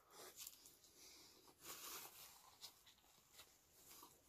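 Faint close-up chewing and mouth sounds from a bite of cheeseburger, coming in a few short bursts, with a paper napkin rustling near the end.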